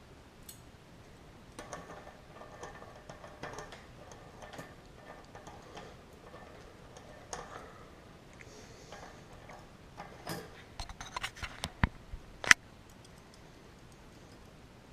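Bicycle cassette cogs and spacers clicking and clinking as they are slid onto the rear hub's freehub body. Light scattered clicks give way after about ten seconds to a quicker run of sharper metal clicks, the loudest a single sharp click near the end.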